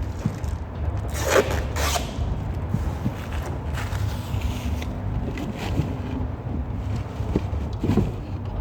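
Plastic packaging rustling and scraping in short bursts as installation parts are unwrapped and handled, over a steady low rumble.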